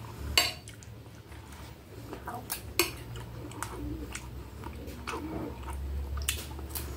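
Close-up eating sounds: a person chewing food, with a metal spoon clinking sharply against the plate a few times as spoonfuls are scooped.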